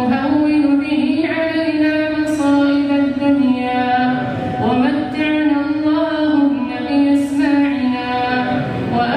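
A male imam chanting an Arabic supplication into a microphone, in long, drawn-out melodic phrases with slowly wavering pitch and brief breaks between them.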